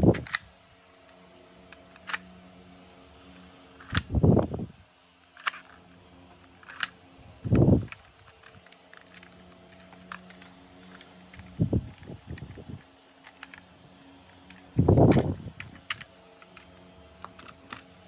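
Hard plastic toy parts being handled, with scattered small clicks and taps. Every few seconds there is a louder dull bump of handling noise.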